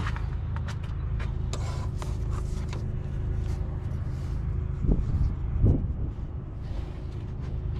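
Small metallic clicks and two duller knocks around five and six seconds in as parts and tools are handled during work on a van's cooling fan and fan clutch, over a steady low hum.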